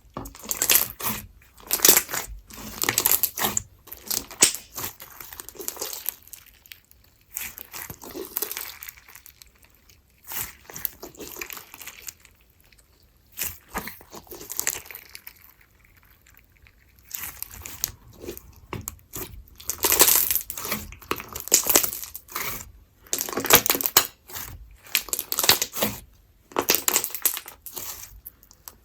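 Hands squishing, stretching and pressing slime, in irregular bursts of crackling and popping with short pauses between.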